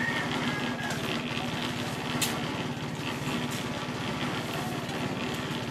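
An engine running steadily, with a sharp click about two seconds in.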